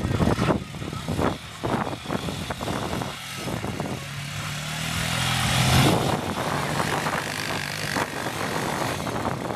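Small quad ATV engine running. It revs up, rising in pitch to a peak about six seconds in, then holds steady. Rough, uneven noise comes before it in the first few seconds.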